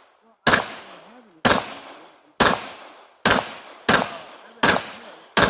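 Seven gunshots at a steady pace, a little under one a second, each loud crack trailing off in a short echo.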